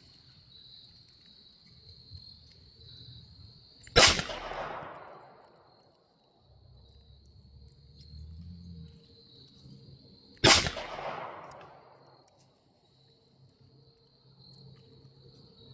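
Two single shots from a Taurus TX22 Competition .22 LR pistol, about six and a half seconds apart, each cracking sharply and then echoing away over a second or so. A steady chirring of crickets runs underneath.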